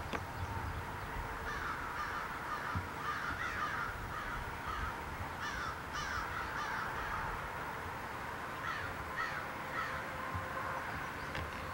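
Birds calling over and over in short, harsh, falling notes, crow-like caws, over a low rumble.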